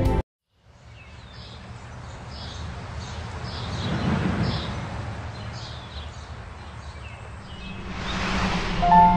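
Outdoor ambience of birds chirping over a low background hiss, fading in just after the music stops abruptly. Two slow swells of rushing noise come about four seconds in and near the end, and a chime enters at the very end.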